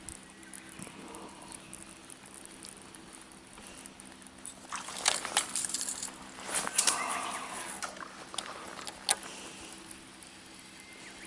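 Steady low hum of a boat's bow-mounted electric trolling motor. A run of rattling and clicking comes about five to seven seconds in, and one sharp click about nine seconds in.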